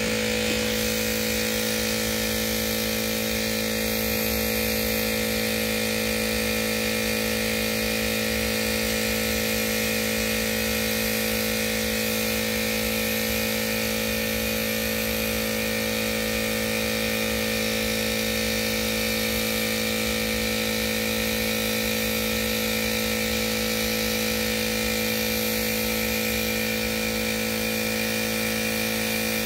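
Air compressor running steadily with a constant hum, under the even hiss of compressed air from a gravity-feed spray gun spraying paint.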